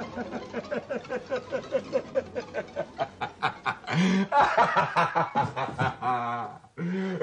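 A person laughing in a quick, even chuckle of about five beats a second, turning into louder, longer vocal sounds about four seconds in.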